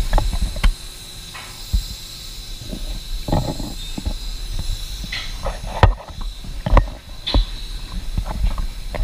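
Wind rumbling on an action camera's microphone, with a steady hiss, and scattered sharp knocks and clanks of hands and gear against the steel spire, several of them in the second half.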